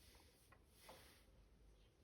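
Faint rustling rub with a few small soft clicks, as hands handle a small toy and its packaging; the rub swells about half a second in and fades before the end.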